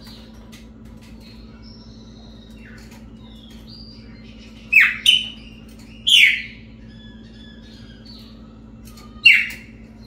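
Chopi blackbird (pássaro-preto) singing: soft whistled notes throughout, broken by loud, sweeping calls, two in quick succession about five seconds in, another a second later and one more near the end.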